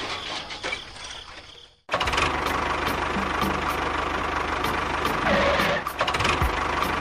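A small engine runs steadily with a fast, even knocking rhythm, cutting in abruptly about two seconds in after a moment of silence. Before that, a noisy sound fades out.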